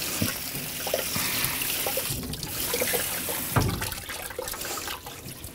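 Cold water from a kitchen tap running over rice noodles in a metal sieve in a stainless steel sink. After about two seconds the flow gives way to water draining and dripping through the sieve, with a dull knock a little after halfway.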